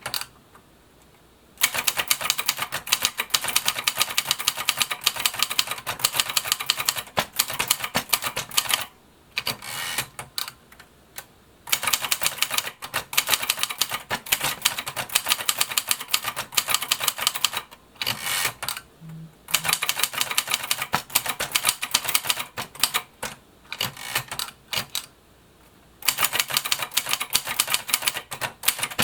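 Kyungbang Clover 950 tabulator Hangul typewriter with a four-set keyboard layout (1979 model), typed at a rapid pace. Its type keys clack in quick runs, broken by a few short pauses.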